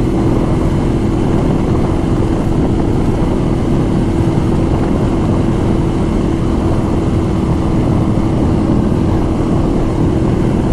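2016 Ducati Monster 1200 R's L-twin engine, fitted with a Termignoni exhaust, running at a steady, unchanging pitch while the bike cruises at speed.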